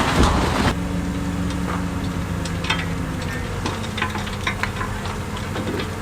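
Diesel engine of heavy earthmoving equipment running steadily at low revs, with scattered crackles and clicks over it. A dense rushing noise cuts off suddenly under a second in.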